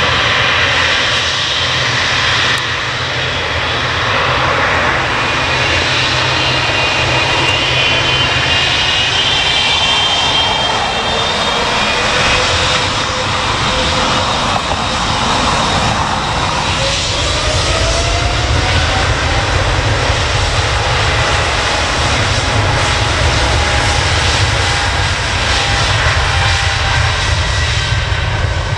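Airliner engines running loud and steady: a deep rumble under a dense roar, with faint whining tones that slide up and down in pitch in the middle. The level falls away right at the end.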